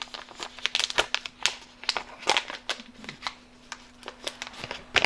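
Compostable stand-up pouch crinkling and crackling as it is handled, with irregular crisp crackles.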